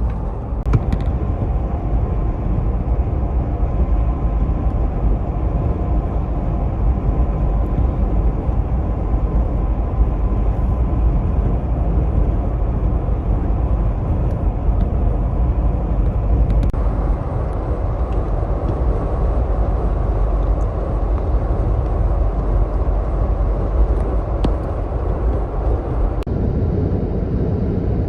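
Car driving on the road: a steady low drone of engine and tyre noise, which shifts slightly in tone about sixteen seconds in and again near the end.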